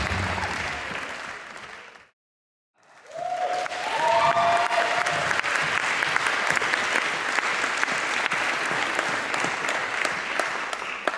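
Audience applauding, with the dance music fading out beneath it at first. The sound cuts out completely for under a second about two seconds in, then steady applause picks up again and continues.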